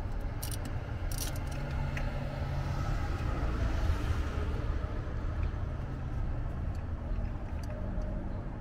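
A few sharp metal clicks from a wrench working a bolt loose on the engine. Under them runs a steady low rumble that swells and fades again around the middle.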